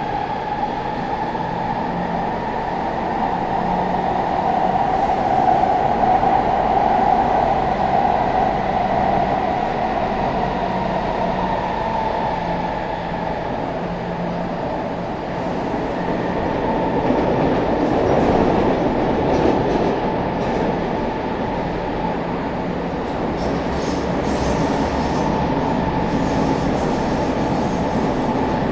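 Athens metro train running, heard from inside the carriage: a steady rumble of wheels on the track with a motor whine that rises slightly at the start. The noise swells for a few seconds about eighteen seconds in.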